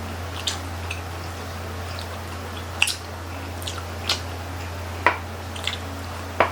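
Close-miked eating of grilled chicken-intestine skewers: wet mouth clicks and smacks at irregular intervals, about six in all, over a steady low hum.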